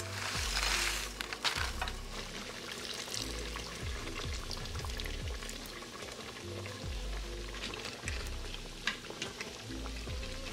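Food sizzling in a hot frying pan at first, then a wooden spoon stirring and scraping through simmering sauce in a steel pot, over soft background music.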